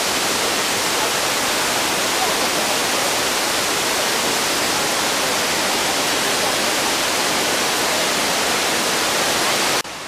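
Steady, loud rush of Victoria Falls, the Zambezi River plunging into its gorge. It cuts off abruptly near the end.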